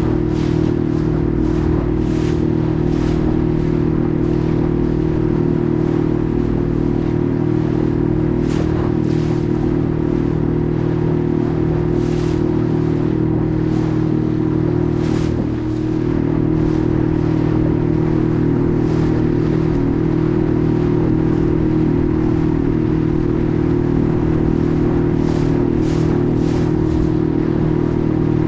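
A boat's engine running steadily under way, a constant drone, with water splashing and slapping against the hull at irregular moments.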